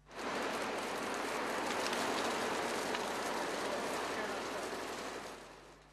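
Steady crackling hiss of hot cast asphalt pouring from a truck's chute into a wet pothole, fading out near the end.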